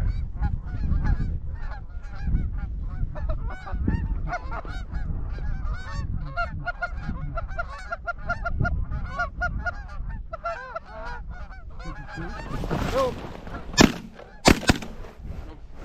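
A flock of Canada geese honking repeatedly as they come in over decoys, followed near the end by two shotgun blasts about half a second apart.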